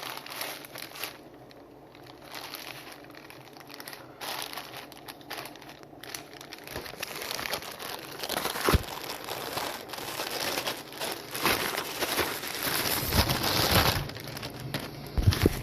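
Plastic and paper packaging crinkling and rustling as a box of fireworks is rummaged through and its contents dumped out. The noise gets louder about halfway through, with a few dull knocks from packs landing near the middle and end.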